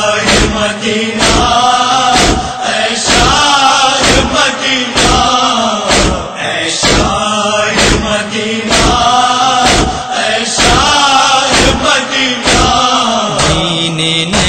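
Noha, a Shia lament in Urdu: a male voice chants in long, wavering phrases over a steady beat that falls about every 0.6 seconds.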